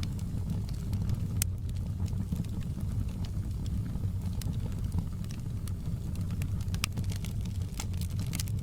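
Wood fire burning in a fireplace: a steady low rumble with sharp crackles and pops at irregular intervals.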